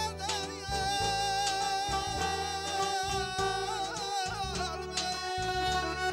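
Live band music: a man singing into a microphone with a wavering, ornamented melody, backed by clarinet and a plucked lute over a steady, pulsing bass beat.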